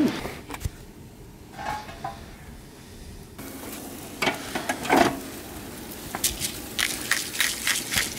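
Steaks and vegetables sizzling over a charcoal grill, the hiss coming in about three seconds in, with scattered clicks and clinks of pans and utensils.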